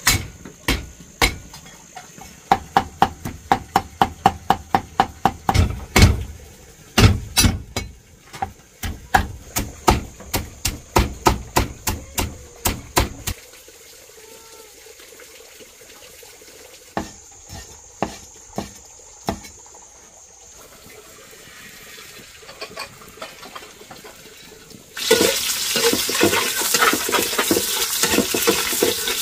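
A cleaver chopping rapidly on a round wooden chopping board, about three sharp knocks a second, then a few scattered knocks. Near the end, sliced shallots hit hot oil in a wok and sizzle loudly and steadily.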